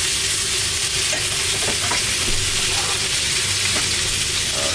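Steaks sizzling in hot frying pans on a gas stove: a steady hiss with a few faint clicks.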